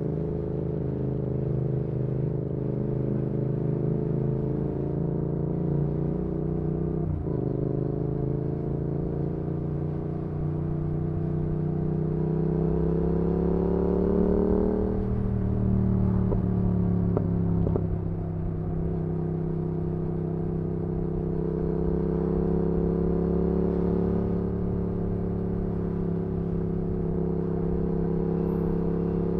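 2019 Yamaha XSR700's parallel-twin engine through an aftermarket IXRACE MK2 exhaust, heard onboard while riding. The engine holds a steady pitch with a brief break near 7 s, then climbs steadily under acceleration for several seconds. About halfway through the pitch drops sharply, and the bike settles back to steady cruising.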